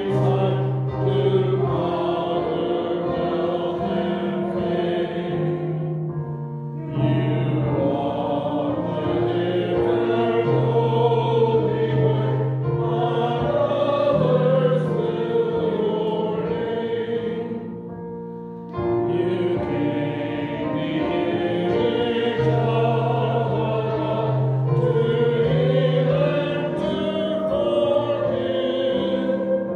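A hymn sung to piano accompaniment: a singing voice with vibrato over held piano chords, pausing briefly between phrases about 7 and 19 seconds in.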